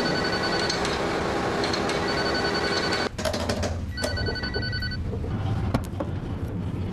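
An electric bell rings over a loud rushing mechanical noise, and both cut off abruptly about three seconds in. About a second later a shorter bell tone of about a second sounds as an elevator call button is pressed.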